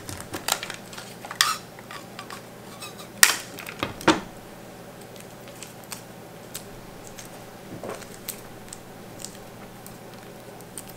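Clear tape being pulled from a desk tape dispenser and torn off, giving a few sharp clicks and short rips in the first four seconds, then only faint ticks as the strip is handled.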